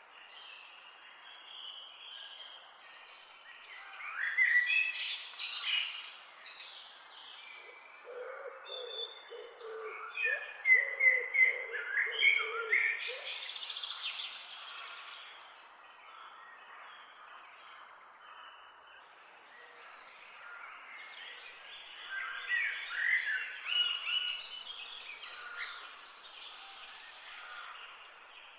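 Several songbirds singing and chirping together over a steady background hiss. The song comes in busier bursts about 4, 10 to 14, and 22 to 26 seconds in, with a run of low notes from about 8 to 13 seconds.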